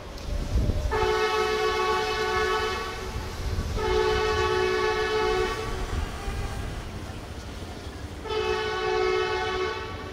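Diesel locomotive horn, a Progress Rail MDGT42ACL on an approaching train, sounding three long chord blasts. The first two follow close together about a second in and the third comes near the end. A steady low engine rumble runs underneath.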